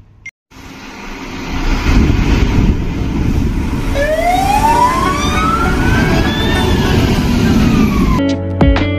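Fire engine on the move, with loud engine and road rumble. About four seconds in, its siren winds up in one long rising wail and then begins to fall. Near the end it cuts off abruptly into guitar music.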